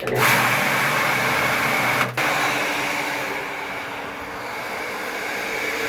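Electric water pump in a farm well's pump house switching on suddenly and running with a steady mechanical hum and rushing noise, with a short click and break about two seconds in.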